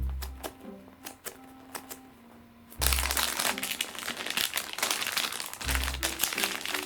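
Plastic packaging crinkling and rustling as it is handled, starting about three seconds in and lasting about four seconds. Scattered light clicks come before it, over soft background music.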